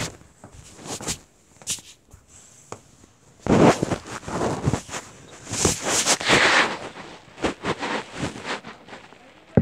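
Rustling and scuffing handling noises with scattered clicks and knocks, louder and denser through the middle few seconds, as someone moves about in the dark.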